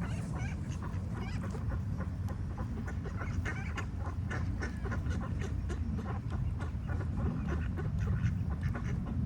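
Ducks quacking, many short calls in quick succession, over a steady low rumble.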